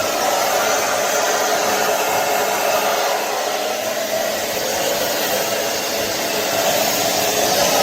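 Hair dryer running steadily, blowing through a diffuser attachment.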